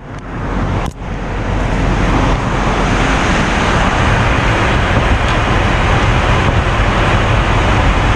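Steady rushing in-flight cabin noise of a passenger jet, the engines and airflow heard inside the cabin, briefly dipping about a second in.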